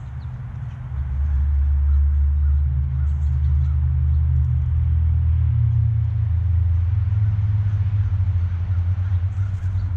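Low, steady rumble that grows louder about a second in, with faint bird chirps over it.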